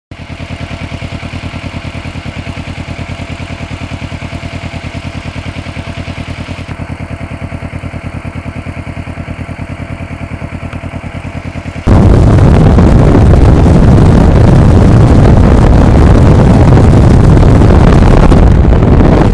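Motorcycle engine idling with an even, pulsing beat. About twelve seconds in, the sound suddenly becomes much louder and rougher, a dense rush that runs to the end.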